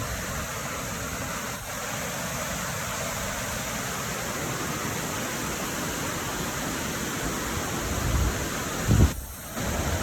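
Steady rushing of a waterfall and its creek running beneath and around the ice. Near the end a louder low rumble rises to a brief thump.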